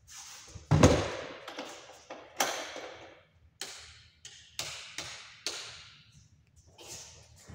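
Wall light switches clicked one after another, about eight sharp clicks, each trailing a short echo off the bare walls of an empty room. The first, about a second in, is the loudest and carries a dull thud.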